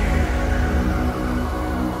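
Background music: an electronic track with sustained low notes whose heavy bass drops away about halfway through.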